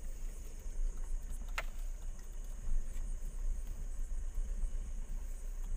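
Vehicle engine running with a steady low hum, heard from inside the cab, under a steady high chirring of crickets. There is a single sharp click about a second and a half in.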